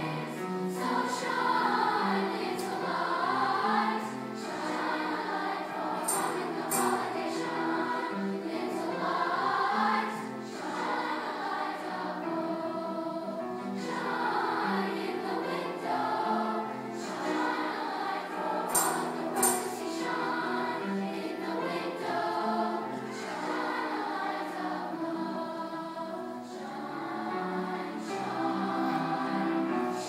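Large middle-school choir singing a Christmas piece in many voices, accompanied by piano.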